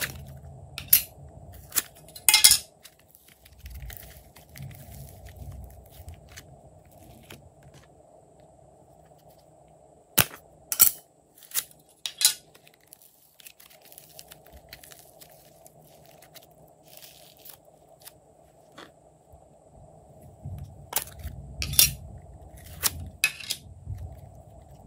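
Sharp plastic clicks and taps as popsicle-shaped plastic molds are opened and handled, coming in three short clusters, with softer squishing and rubbing of the molded slime pieces between them.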